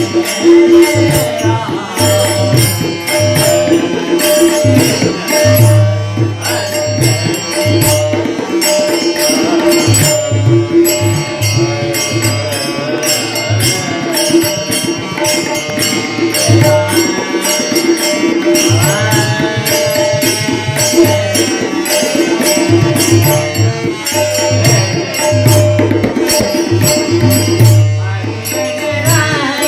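Marathi devotional bhajan music with tabla accompaniment: a steady sustained tone under a busy run of rhythmic drum strokes with deep bass thumps.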